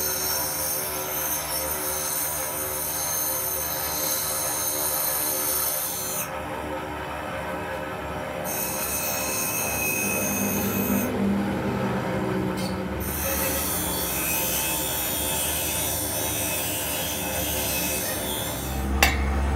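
A steady, high-pitched metallic squeal made of several held tones, fading out of its high range twice for a couple of seconds. A couple of sharp knocks come near the end.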